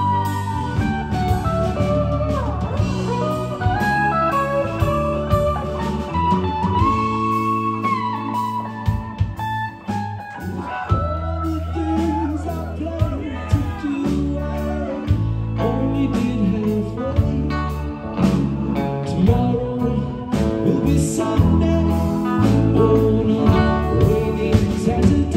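Live rock band playing an instrumental passage: an electric guitar lead with bending, gliding notes over electric keyboard, bass guitar and drums.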